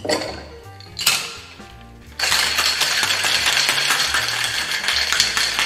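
Two knocks as a steel tin is pressed onto a mixing glass to close a Boston shaker. About two seconds in, ice starts rattling hard inside the shaker as the cocktail is shaken vigorously for about three and a half seconds.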